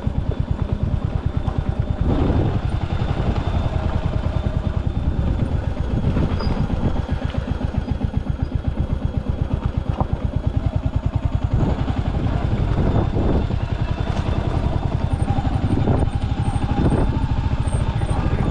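Royal Enfield Hunter 350's single-cylinder engine running steadily with an even, rapid pulse, and a few knocks and rattles scattered through.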